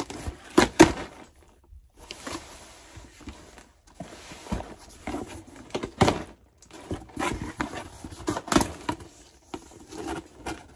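Cardboard shipping box being handled and opened by hand: irregular scraping and rustling of cardboard flaps with scattered knocks, two sharp ones under a second in.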